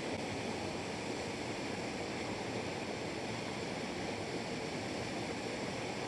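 Small river waterfall: water pouring over rocks into a pool in a steady, even hiss.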